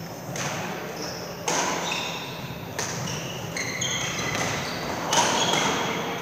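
Badminton rally sounds: a few sharp strikes of racket on shuttlecock, among short high squeaks of court shoes on the sports-hall floor, with echo after the strikes.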